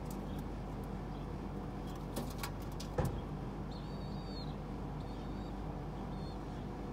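Steady low background hum, with a few sharp taps a little after two seconds in and a louder tap at three seconds. Faint, thin, high chirps come around the middle.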